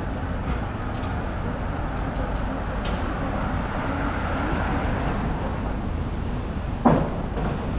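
Urban street traffic noise with a black London taxi passing close by about four seconds in. Near the end there is one short, loud, sharp sound that falls quickly in pitch.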